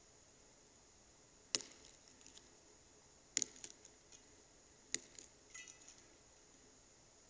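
Priest handling the host and a metal paten at the altar: three sharp clicks, each about a second and a half apart, each followed by a few lighter ticks, then a brief faint metallic ring about halfway through.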